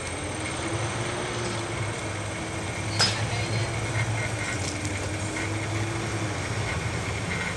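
A steady low mechanical hum, like a motor or engine running, over outdoor background noise, with one sharp click about three seconds in.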